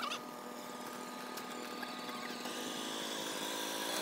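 A steady mechanical whirring, like a small motor running, made of several even tones that shift slightly and grow a little louder near the end.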